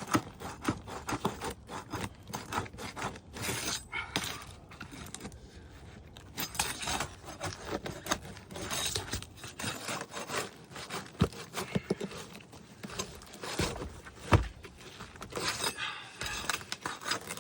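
Metal pry bar scraping and clinking under roof shingles, working at a tight nail. Irregular scrapes and clicks, with one sharp knock about two-thirds of the way through.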